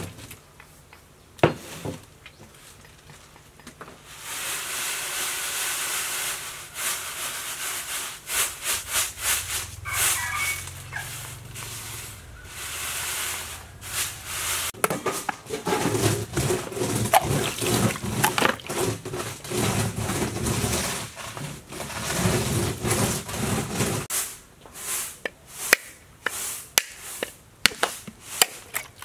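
A wooden rolling pin rubbing and crushing dry beans against a woven bamboo tray, a steady gritty rubbing, to loosen their husks. Then the beans are tossed and shaken on the tray in a rhythmic swishing to winnow the husks off, and near the end comes a run of sharp knocks.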